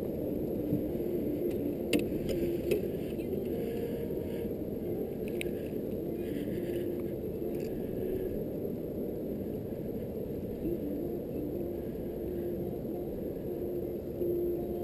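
Small outboard motor running steadily at low trolling speed, a low even drone with a faint wavering hum. A few light clicks sound a couple of seconds in and again about five seconds in.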